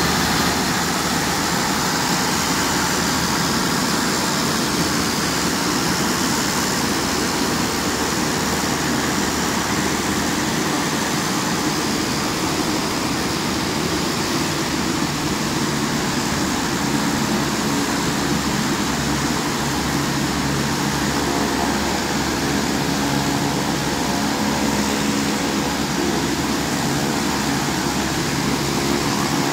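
Steady mechanical drone with a few low humming tones, unchanging in level throughout.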